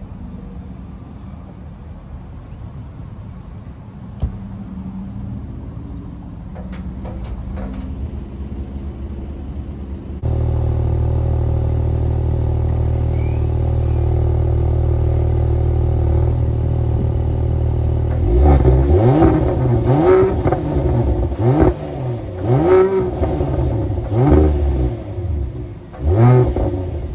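Mercedes-AMG GLE 53's 3.0-litre turbocharged inline-six heard through its AMG performance exhaust, with the baffles open in Sport Plus mode. After a quieter stretch with a few clicks, the exhaust note jumps suddenly to a loud, steady idle about ten seconds in. From about eighteen seconds it is blipped in a string of quick revs with burbles and cracks, then settles back to idle at the end.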